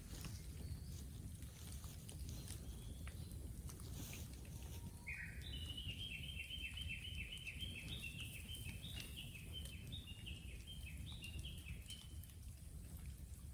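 A small songbird sings a long, rapid run of high repeated notes, starting about five seconds in and lasting about seven seconds. Underneath is a low steady rumble, with a few faint crackles from the burning bamboo before the song begins.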